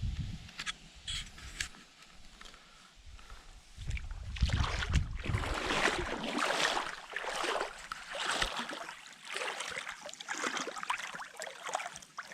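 Water sloshing and splashing close to the microphone in irregular surges, with a low rumble in the first couple of seconds.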